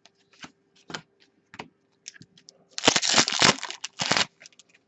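Trading-card packaging being handled: scattered light clicks and rustles, then about three seconds in a second and a half of crinkling and tearing, as of a foil card pack wrapper being torn open. A faint steady hum runs underneath.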